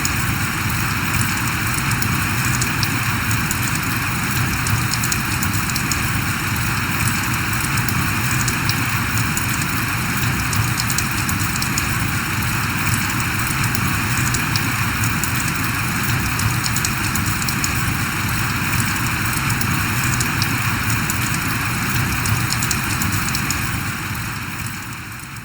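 Steady rain falling, an even hiss of drops with no thunder, fading out near the end.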